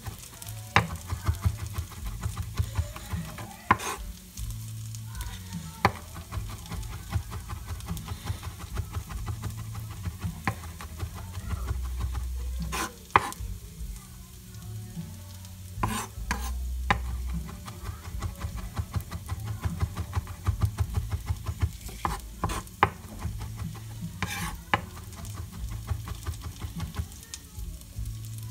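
Chef's knife mincing garlic on a cutting board: rapid light taps with scattered louder knocks, over onions sizzling in olive oil in a pan.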